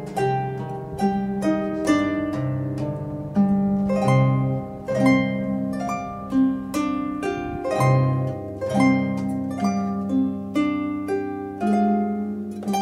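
Solo harp music: a steady run of plucked notes, each ringing as it dies away, over held low bass notes.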